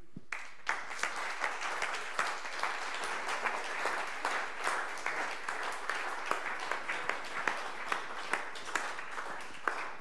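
Audience applauding, many people clapping steadily, starting just after the beginning.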